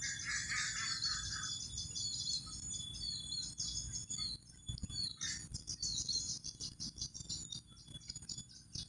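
Insects chirring steadily, with short falling bird chirps over them and a low rumble underneath.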